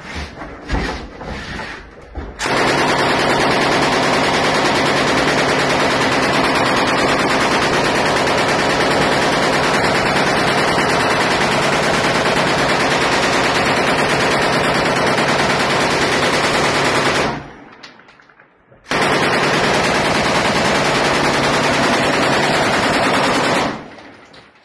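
M240 7.62 mm belt-fed machine gun firing inside a small room: one long continuous burst of about fifteen seconds starting a couple of seconds in, a break of about a second and a half, then a second burst of about five seconds.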